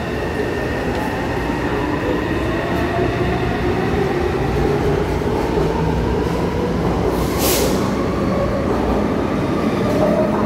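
Taipei Metro C301 high-capacity steel-wheel train pulling out of the station: traction motors whining with slowly rising pitch as it gathers speed, over a steady rumble of steel wheels on rails. A brief hiss about seven seconds in.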